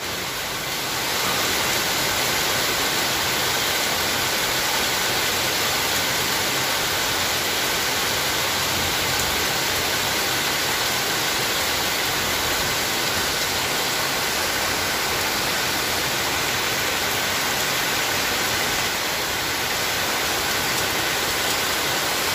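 Steady rain: an even hiss of falling water with no separate drops or thunder standing out, swelling up over about the first second and then holding level.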